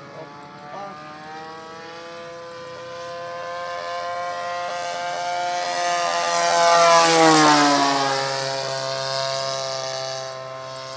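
Radio-controlled Corsair model plane's 35cc DLE two-stroke petrol engine and propeller droning in flight. The note grows louder as the plane comes in low, peaks about seven seconds in, drops in pitch as it passes, and then fades.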